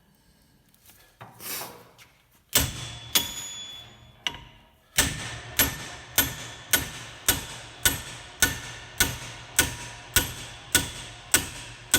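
Slogging hammer striking the end of a hub puller bolted to a Jensen Interceptor's rear hub, each blow a sharp metallic clang that rings on. A single blow about two and a half seconds in, then steady blows just under two a second from about five seconds in, while the hub is still tight on its shaft.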